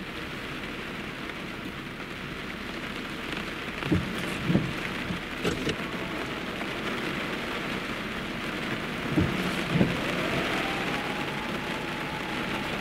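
Heavy downpour: a steady hiss of rain falling on the road and surroundings, broken by a few short low thumps.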